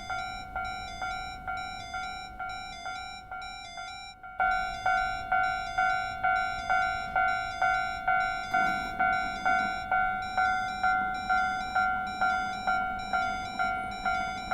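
Japanese railway level-crossing warning bell ringing 'kan-kan' at about two strikes a second. The ringing fades and stops about four seconds in, then a louder crossing bell starts up and rings on steadily.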